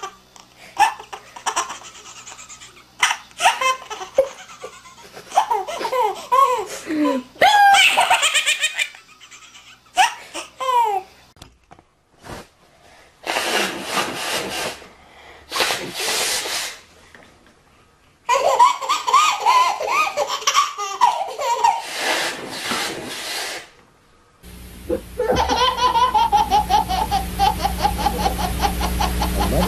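Babies laughing: short bursts of high giggles and belly laughs that rise and fall in pitch, in several separate recordings cut abruptly one after another. Near the end, one long laugh held on a steady pitch with rapid pulses over a louder background.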